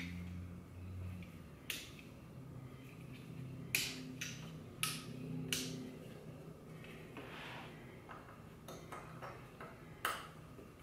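Scattered sharp clicks and light knocks from hands-on work under a car's center console: wiring connectors being snapped back together and console bolts handled, about six separate clicks with the loudest near the end. A faint low hum runs underneath.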